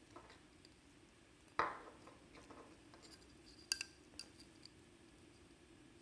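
Small clicks and taps from handling the metal drone camera gimbal and its ribbon cable by hand, with one sharper knock about a second and a half in and a few light clicks a couple of seconds later.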